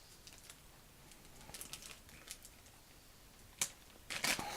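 Fingernails picking at a sealed plastic slime packet: faint scattered ticks and light crinkles, with one sharper click about three and a half seconds in and a few more near the end.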